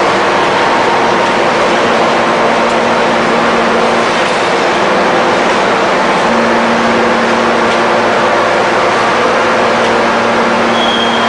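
Hydraulic open-die forging press running: a loud, steady machine noise with a constant hum, one low hum tone growing stronger about six seconds in.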